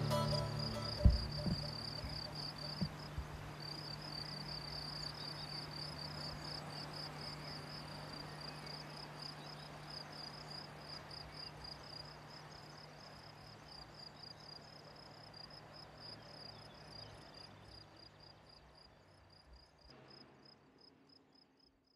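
Insects chirping in a fast, steady pulsing trill, high-pitched, over a low steady hum. Two low thumps come in the first three seconds, the first the loudest sound. Everything slowly fades out and drops to silence just before the end.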